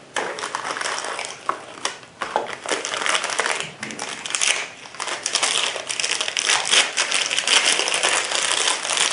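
Packaging being handled and unwrapped: continuous crinkling and crackling with many small clicks.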